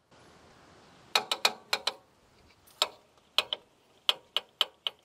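Ratchet wrench clicking in short runs of several sharp clicks with pauses between, as a fitting by the fuel filter of a Caterpillar D4D dozer's diesel engine is turned.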